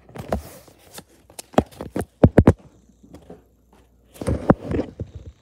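Handling noise close to the microphone: three bursts of rustling and thumps, with a quick run of four sharp knocks about two seconds in.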